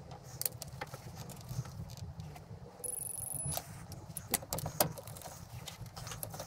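Metal clinks and clicks of a socket and digital torque-angle wrench being fitted onto cylinder head bolts, with one short high electronic beep from the wrench a little before halfway.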